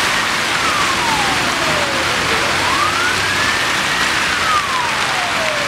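An emergency-vehicle siren wailing, its pitch sliding slowly down, up and down again, each sweep about two seconds, heard over louder steady noise of heavy street traffic.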